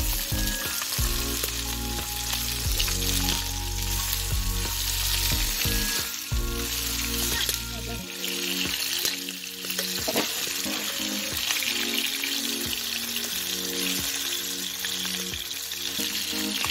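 Whole small fish shallow-frying in hot oil in an iron kadai, sizzling steadily, with a steel spatula now and then scraping the pan as it turns them.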